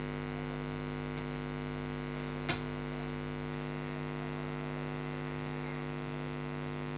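Steady electrical mains hum, with one short faint click about two and a half seconds in.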